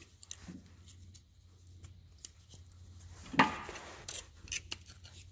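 Small metal clicks and scrapes of a snap ring being worked into a Tru Count planter clutch hub with fingers and a screwdriver, with one louder knock about three and a half seconds in.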